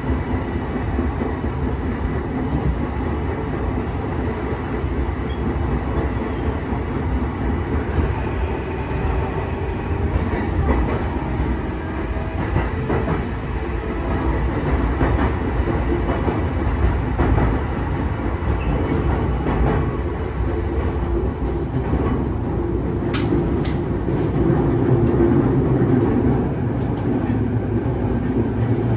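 JR East E233-0 series electric train running on jointed rail, heard inside the car: a steady running rumble with the wheels clacking over rail joints now and then.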